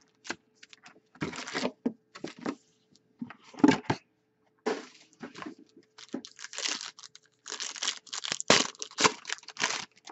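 Hockey card pack wrapper being torn open and crinkled in irregular bursts, then the cards inside being handled.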